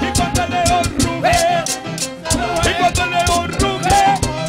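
Upbeat Latin-style Christian worship music with a steady percussion beat and a melody line.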